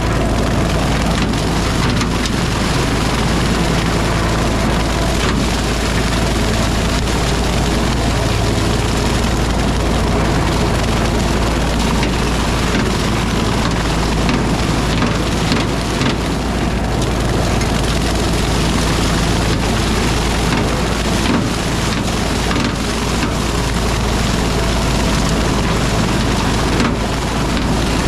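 RK37 tractor running steadily under load with a bush hog rotary cutter shredding brush: a dense, even machine noise over a low engine hum, with scattered short cracks of wood and debris.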